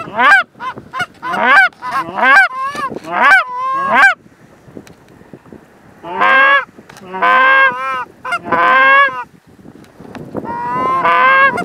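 Canada goose honks and clucks, several callers at once: a quick string of short, sharp clucks for the first four seconds, then two longer bursts of overlapping honking from about six and ten seconds in, calling to a flock of geese coming in to the decoys.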